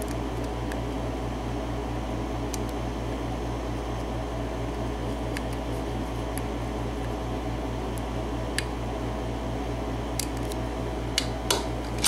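A steady low hum, with scattered faint clicks of a lock pick and tension wrench working the pin stack in the keyway of an American Series 100 padlock; the clicks come a little closer together near the end.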